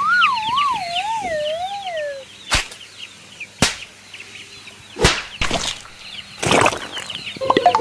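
Ducklings and chicks peeping over edited cartoon sound effects: a wavering whistle that slides downward over about two seconds, then several sharp whip-crack swishes.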